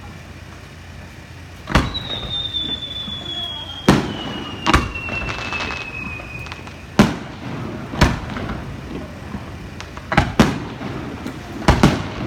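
Aerial fireworks shells bursting: about nine sharp bangs at uneven intervals, some in quick pairs near the end, with a long high whistle falling slowly in pitch through the first half.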